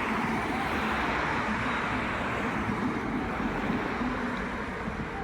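Road traffic passing: a steady rush of car tyre and engine noise that eases off in the second half.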